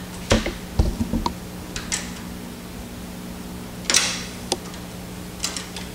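Scattered light clicks and knocks of hands working on parts inside a direct-to-garment printer's sheet-metal chassis, over a steady low hum.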